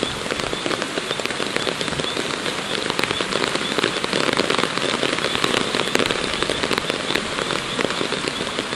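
Steady hiss of water with many small pattering crackles throughout.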